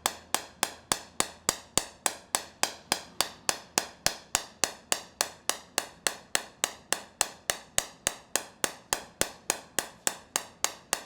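SoftWave acoustic shockwave therapy applicator firing against the knee through coupling gel: a steady train of sharp clicks, about four a second, each of the same strength.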